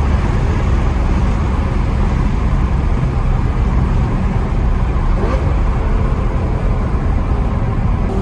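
Lamborghini Gallardo Superleggera with a V10 engine and an aftermarket exhaust, cruising at a steady speed on a highway. Engine and road noise hold a constant loud drone with no revving.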